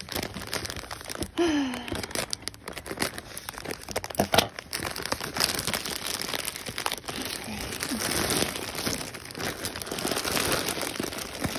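White plastic poly mailer bag crinkling and rustling continuously as hands work it and tear it open, with scattered sharper crackles.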